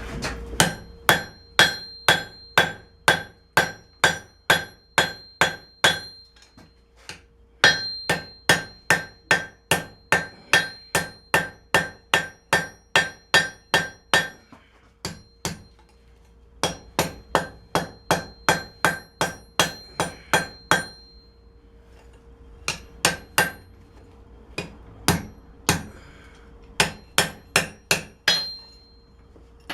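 Hand hammer striking hot steel on an anvil, about three ringing blows a second in runs with short pauses, forging the bevels of a knife blade made from a wrench. A steady hum sits underneath.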